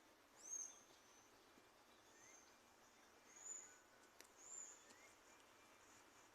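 Small birds calling faintly: four short, high chirps about a second apart, the first the loudest, over a faint steady hiss.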